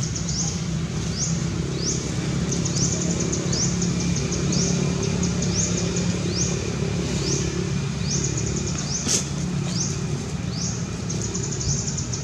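Outdoor ambience: a high-pitched rising chirp repeats about once or twice a second, sometimes in quick runs, over a steady low hum. A single sharp click sounds about nine seconds in.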